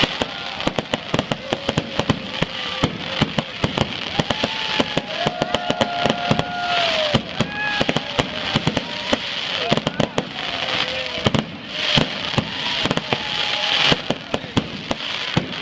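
Fireworks going off in a rapid, irregular string of sharp pops and crackles throughout, with voices calling out now and then.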